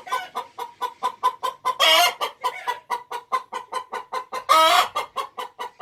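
Hen cackling loudly: a fast run of short clucks, about eight a second, broken by two long drawn-out squawks about two seconds in and again about four and a half seconds in. It is the noise a hen makes when she is laying an egg.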